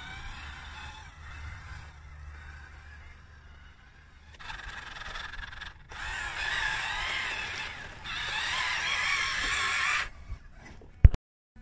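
Electric motor and gearbox whine of a radio-controlled tracked Fayee truck crawling over loose sand, in several short stretches that start and stop abruptly, with wind rumble on the microphone at first and one sharp pop near the end.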